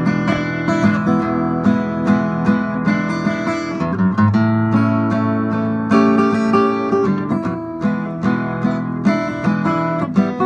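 Background music of a strummed acoustic guitar playing steady chords.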